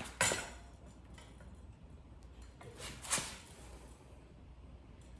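Metal bicycle parts clinking and knocking as a front wheel with a disc brake rotor is worked into the fork and brake caliper: a sharp knock just after the start, another about three seconds in, and faint ticks between.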